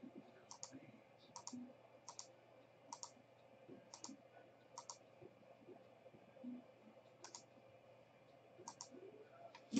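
Faint clicks of a computer mouse and keyboard, sharp and often in quick pairs, about one every second, from someone looking something up on a computer.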